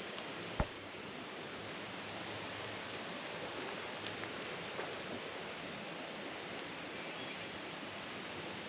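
Steady rushing of a flowing creek, with a single sharp click about half a second in.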